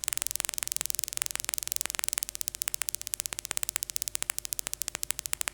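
Synthesized clicks from the Vital synth, a rapid, fairly even stream of sharp ticks over a faint steady hum, meant as a paper-crumpling crackle but still too regular to sound random.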